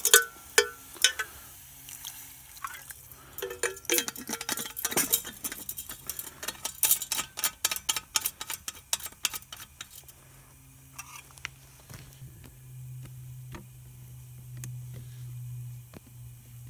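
Broth in a Swedish army mess kit pot crackling and popping on the camp stove as it heats, with many sharp pops over the first ten seconds, then a steady low hum near the end as it comes to a boil. The stove's heat can't be turned down, and the food is starting to scorch on the bottom of the pot.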